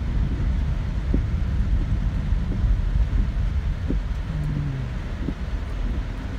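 Steady low rumble of a car driving through heavy rain, heard from inside the cabin, with rain on the windscreen.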